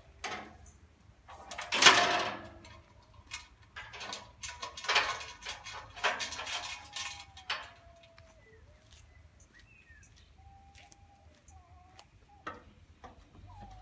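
Metal clanks and rattles from a mobile work platform's folding guardrails being handled. There is one loud clank about two seconds in and a run of clatters a few seconds later, followed by thin, wavering squeaks.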